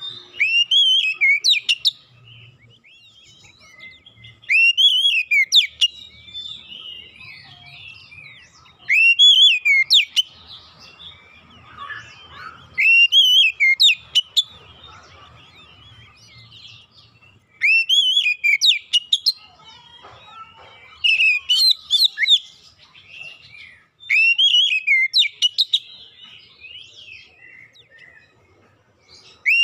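Oriental magpie-robin singing: short, loud whistled phrases about every four seconds, each with quick rising and falling sweeps, and quieter twittering between them.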